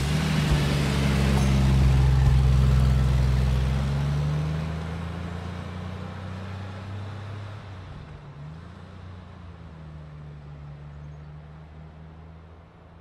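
Maruti Suzuki Swift hatchback driving close past over a gravel road, its engine and tyres loudest in the first few seconds, then fading steadily as it drives away.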